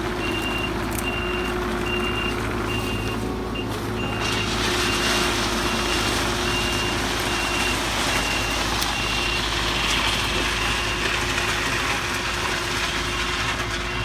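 Mini excavator's engine running under load with its travel alarm beeping steadily as it backs up dragging its front blade. About four seconds in, a rough scraping noise joins as the blade drags across earth and stone.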